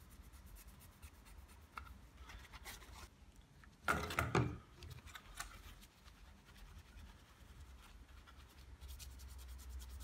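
Faint scratchy rubbing of a tissue dampened with alcohol scrubbed across the solder side of a circuit board, cleaning off soot from a burnt trace. A brief louder noise about four seconds in.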